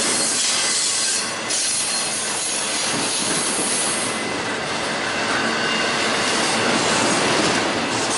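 Norfolk Southern double-stack intermodal freight cars rolling past close by: a steady, loud rush of steel wheels on rail.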